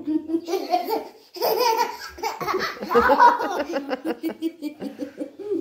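A toddler and an older child laughing together in rapid bursts during rough play, loudest around three seconds in.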